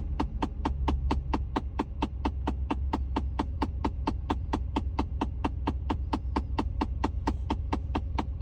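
Rapid, evenly spaced clicking from behind a Ford F-150's dashboard, about four to five clicks a second, over a steady low hum. It is the classic sound of a failing HVAC blend door actuator whose stripped internal plastic gears skip.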